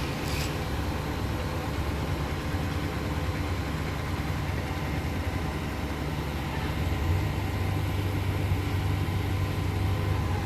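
Heavy diesel engine of a crane running steadily while lifting a load, with a low hum that grows louder about two-thirds of the way through.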